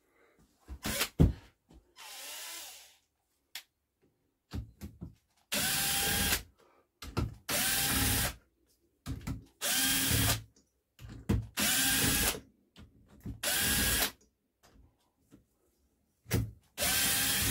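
Power drill-driver spinning out the cylinder head bolts of a JAP single-cylinder engine, in about six short runs of roughly a second each. Clicks and knocks come between the runs as each bolt is handled.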